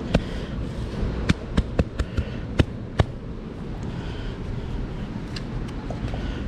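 A handful of sharp clicks and taps in the first three seconds, from handling metal-detecting gear while recovering a target, over a steady low rumble of wind and handling on the microphone.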